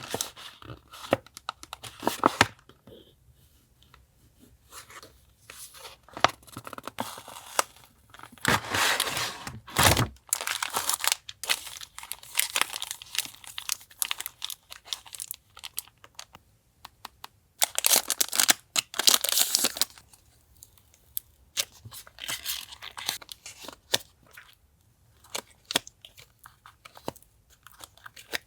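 Paper and plastic sticker packaging being handled and unwrapped: irregular crinkling and rustling with small taps and clicks. There are two longer, louder rustles, one about a third of the way through and one about two thirds through.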